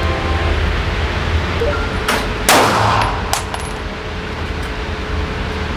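Three pistol shots fired about two to three seconds in, the middle one loudest, each followed by a ringing echo off the walls of an indoor shooting range.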